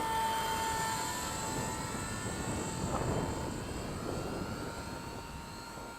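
WLtoys V950 RC helicopter in flight in idle-up mode: the brushless main motor and rotors give a steady whine made of a few held tones. It sounds healthy.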